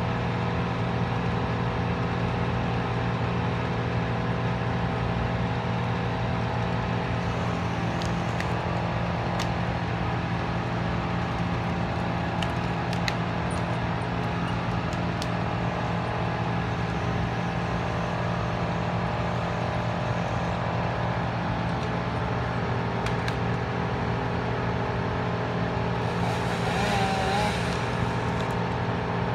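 Mobile crane's diesel engine running steadily while it lifts a tree trunk, an even low hum with a few faint clicks.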